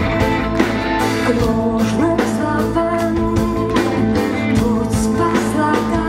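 Live rock band playing amplified electric guitars, electric bass and drum kit, with the lead singer's voice over the band.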